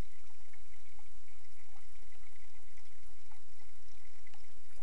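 Water swirling in a Blue Bowl gold concentrator, fed by a garden hose, with a steady low rumble underneath.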